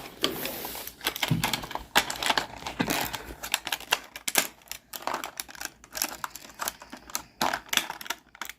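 Quick, irregular clicking and tapping of small trinkets and packaging being handled as advent calendar compartments are opened.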